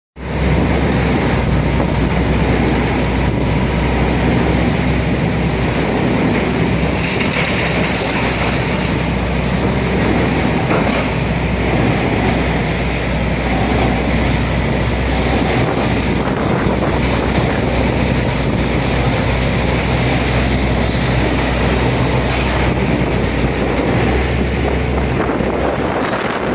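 Sawdust extraction system running: a loud, steady rush of air and machinery over a low hum. The hum drops away near the end.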